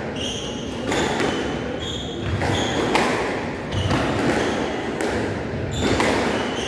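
Squash rally: sharp cracks of the ball off rackets and walls about once a second, with short high squeaks of court shoes on the wooden floor between them.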